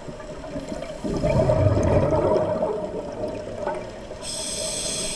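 Scuba regulator breathing underwater: a rush of exhaled bubbles starting about a second in and lasting about two seconds, then a hissing inhale through the regulator near the end.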